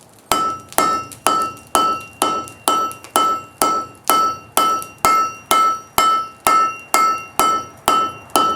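Hand hammer forging steel on an anvil in a steady, even rhythm of about two blows a second, each blow ringing.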